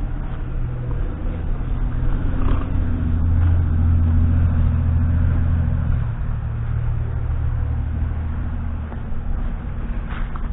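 New Holland LX665 skid steer loader's diesel engine running steadily. It grows louder for a few seconds in the middle, then eases back.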